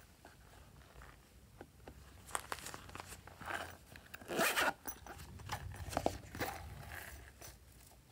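Zipper on a silicone pop-it pouch being pulled open in several short pulls, the longest and loudest about halfway through.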